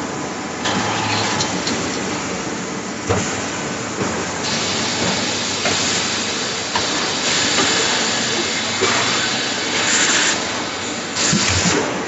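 Machinery of a stainless steel cookware production line running, with repeated hissing bursts of compressed air from the pneumatic machines and a single clunk about three seconds in.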